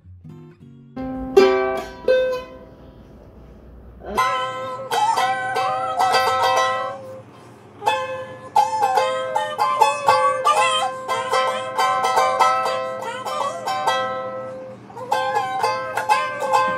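A ukulele being plucked: a picked melody of ringing single notes and chords. It is sparse and quieter for the first few seconds, then fuller and louder from about four seconds in.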